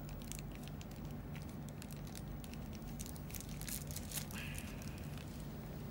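Thin plastic bag crinkling with faint scattered ticks as fingers pick at a tight knot, over a steady low hum.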